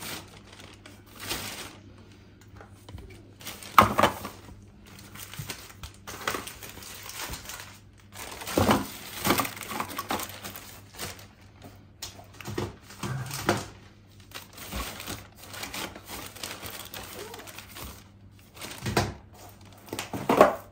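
Thin plastic carrier bag rustling and crinkling in irregular bursts as packaged food is pushed into it inside a cardboard box, with a few sharper knocks of items going in.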